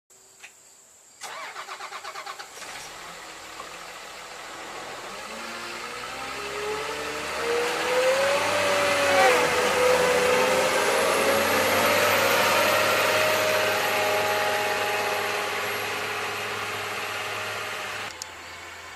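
Komatsu WA320-6 wheel loader's Cummins diesel engine running as the loader drives up and past. It grows louder to a peak midway, its pitch drops as it goes by, and it fades as the loader drives away. The sound comes in abruptly about a second in and cuts off suddenly near the end.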